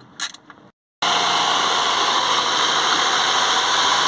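A few ratchet clicks on the water pump tensioner bolts, then a loud, steady running noise from the BMW 1.6 petrol's engine bay, its engine running to bleed the cooling system after a water pump replacement.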